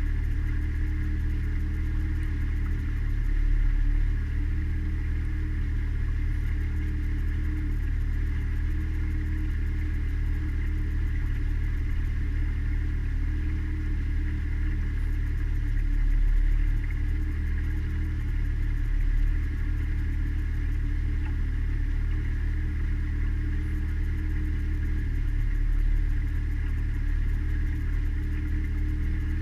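Mariner outboard motor running steadily, pushing a small cabin cruiser along under way, with a low, even drone.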